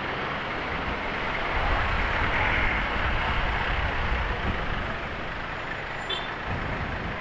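Steady road and riding noise from a Honda Click 150i scooter on the move, with a low rumble. It grows louder about two seconds in and eases off again.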